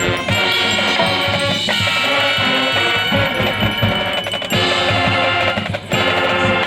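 High school marching band playing loudly, with wind and brass instruments holding chords over a beating drumline.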